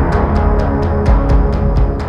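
Dramatic soundtrack background music with a heavy bass and a steady ticking beat, about four ticks a second, easing slightly near the end.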